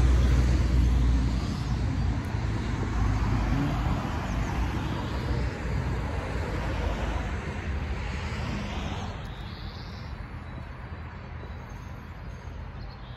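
Outdoor road traffic noise, a vehicle's rumble fading away gradually, with a short bird chirp near the end.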